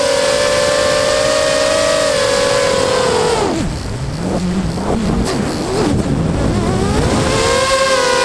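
FPV quadcopter's electric motors whining, heard from the onboard camera. About three and a half seconds in the pitch drops sharply and wavers low, then climbs back over the next few seconds, as the throttle is chopped and brought back up during a manoeuvre.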